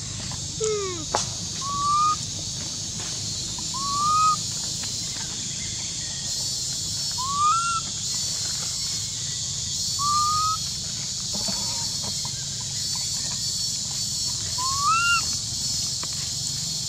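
Baby macaque giving short, rising, whistle-like coo calls, about six of them a few seconds apart, over a steady high hiss.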